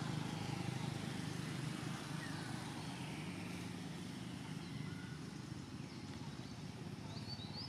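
Steady low rumble of a running motor, like a vehicle engine, with a few faint short high chirps over it, one about two seconds in and a pair near the end.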